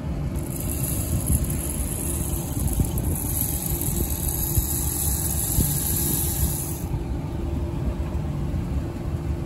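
Steady low rumble of machinery running. A high hiss sets in about half a second in and stops suddenly about seven seconds in.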